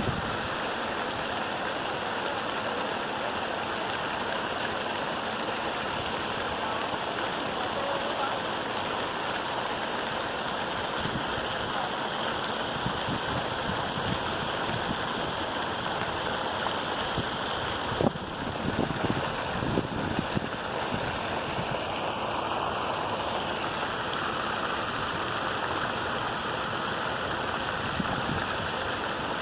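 Steady rush of running water, with a few short knocks about eighteen to twenty seconds in.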